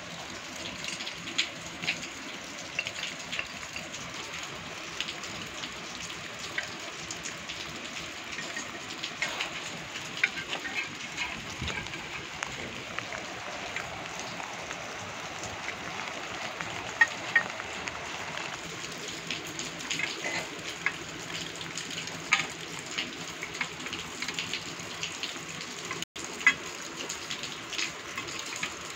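Steady rain falling, with many small sharp drop ticks over an even hiss.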